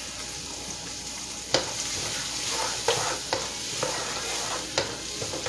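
Diced onion and green bell pepper sizzling as they soften in a deep nonstick pan. From about a second and a half in, a wooden spoon stirs them, giving several sharp scraping knocks against the pan.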